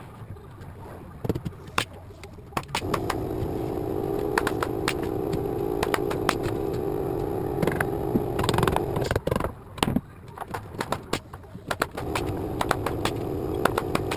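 A steady mechanical drone that starts abruptly about three seconds in, cuts out after about six seconds and starts again near the end, with sharp clicks and knocks scattered throughout from work on a timber house frame.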